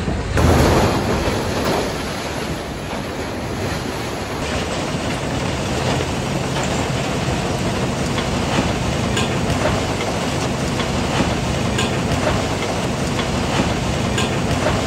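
Industrial car shredder running just after taking in a whole pickup truck: a dense, continuous metallic clatter with many sharp knocks as the shredded metal is pounded and thrown about inside.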